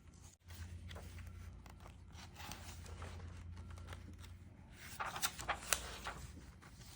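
Paper rustling and scraping as the pages of a Qur'an and a glue-spreading sheet of paper are handled during rebinding, with a cluster of sharper paper crinkles about five seconds in.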